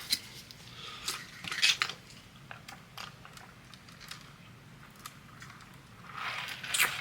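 Someone drinking Kool-Aid straight from the container without a straw: small clicks, sips and swallowing mouth sounds, quiet throughout.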